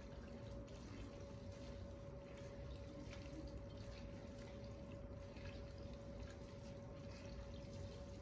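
Soft, wet squishing and small ticks of a bare hand mixing thin noodles with seasoning in a glass bowl, over a faint steady hum.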